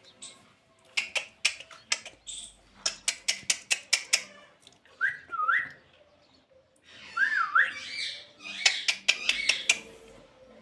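Pet parrot making a quick run of sharp clicks, then two wavy whistles that rise and fall, then another burst of clicks.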